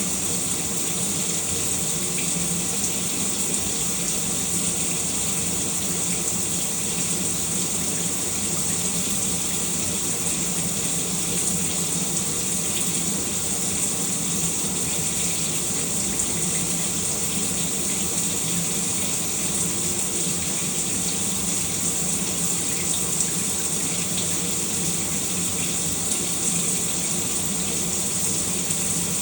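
Shower running steadily, water spraying and splashing with an even hiss.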